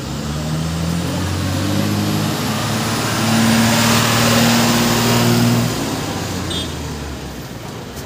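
Motor vehicle engine passing on the road: a low engine hum with shifting tones that grows louder toward the middle and drops off about six seconds in.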